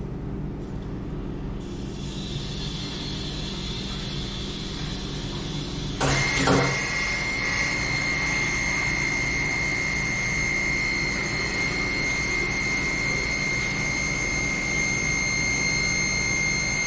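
Water rushing through a fire sprinkler riser's control valve as it is slowly opened: a faint hiss that jumps to a loud hiss with a steady high whistle about six seconds in, over a low steady hum.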